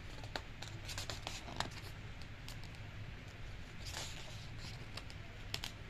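Pages of a large glossy photo book being handled and turned by hand: scattered light clicks and paper rustles, with a longer swish of a page turning about four seconds in.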